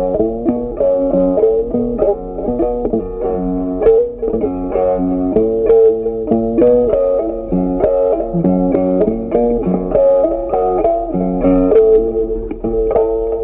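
Background music: a plucked guitar playing a melody of quick, short notes.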